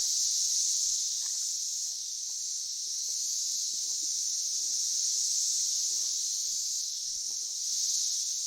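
Steady, high-pitched chorus of forest insects, with faint soft sounds of chewing underneath.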